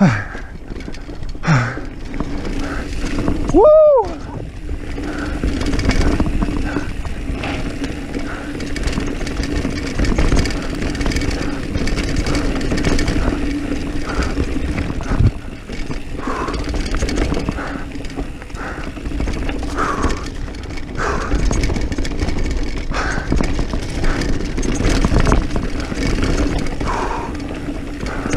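Diamondback Mission 1 mountain bike descending fast on a dirt singletrack: continuous wind rush and tyre noise, with frequent small rattles and knocks from the bike over bumps. The rider gives one short "Woo!" about four seconds in.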